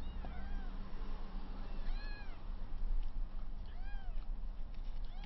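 Very young kitten, about three weeks old, mewing: short high-pitched mews that rise and fall, about every two seconds.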